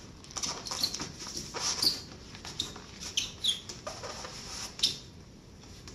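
Dry window cloth rubbed over mirror glass, squeaking in short, irregular high squeaks as it polishes the cleaned glass dry.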